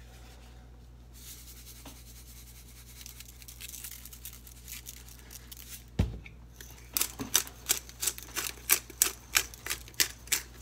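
Hand pepper mill being twisted over raw steaks: a quick run of sharp grinding clicks, about three or four a second, in the last few seconds. A single thump comes just before, about six seconds in, over a low steady hum.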